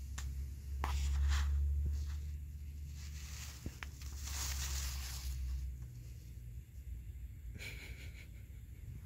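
Soft close-up rustling and breathy noise over a low rumble that stops about six seconds in, with a few faint clicks, as the phone camera is moved in close to a resting dog.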